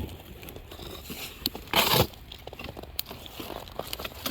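Small campfire of cardboard and kindling crackling in scattered sharp clicks, with a louder crunch about two seconds in and another at the very end.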